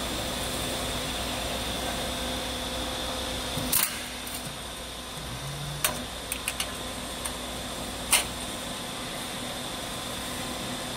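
Hat-profile steel roll forming machine running with a steady mechanical hum while the formed profile feeds out. Sharp metal clanks come about four and eight seconds in, with a few lighter clicks between, as the profile is cut off and the cut length drops. The deepest part of the hum falls away after the last clank.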